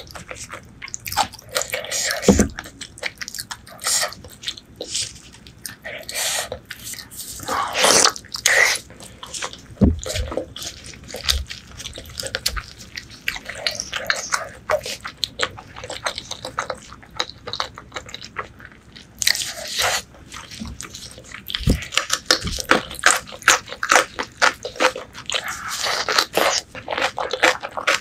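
Close-miked chewing and biting of braised pork leg: a dense, irregular run of mouth clicks and smacks, with a few soft low thumps.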